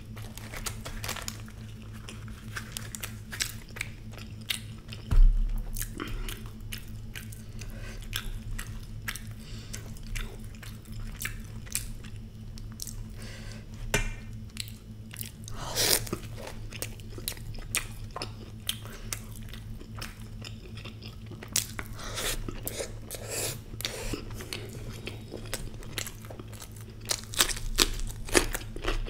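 Close-up eating sounds: wet chewing, mouth smacks and crisp crunchy bites of fried Indian snack food eaten by hand. One loud dull thump about five seconds in, over a steady low hum.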